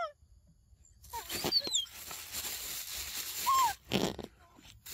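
Short animal calls over a steady hiss: a few quick high chirps that slide downward about a second in, a single falling call after three seconds, and a brief rustle just before four seconds.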